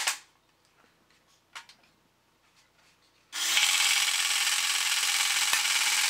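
Electric motor and gear mechanism of a vintage battery-operated tin toy Aston Martin Secret Ejector car, switching on suddenly about three seconds in and running steadily with its machine-gun action going. Before that, a few faint clicks of the toy being handled.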